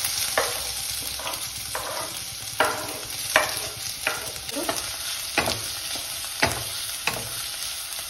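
Chopped onion and green chillies sizzling in hot oil in a steel kadhai, with sharp scrapes and clinks about every three-quarters of a second as the onion is scraped in off a wooden board with a knife and stirred with a metal spatula.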